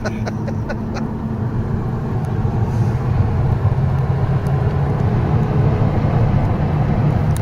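A car driving, with a steady low engine and road drone that grows slightly louder, then changes abruptly at the end.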